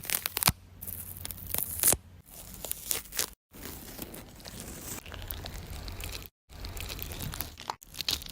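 Crackling tearing noise with many sharp clicks, in several short takes that cut off abruptly into dead silence.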